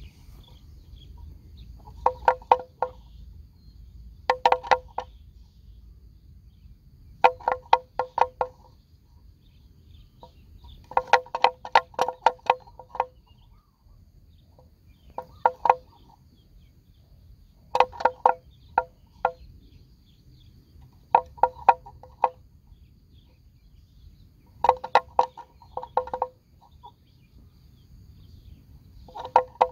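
Water buffalo grazing: bursts of sharp crunching rips as grass is torn off and chewed, coming every few seconds.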